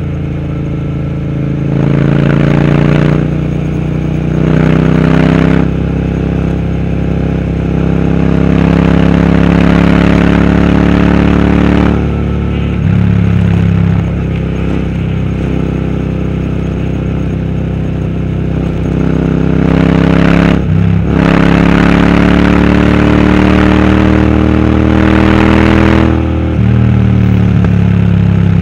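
Royal Enfield Interceptor 650's parallel-twin engine breathing through a Powerage aftermarket exhaust while riding. The exhaust note rises and falls with the throttle and breaks briefly several times as gears change.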